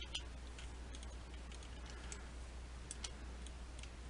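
Faint, scattered clicks of a computer mouse and keyboard being worked, over a low steady hum.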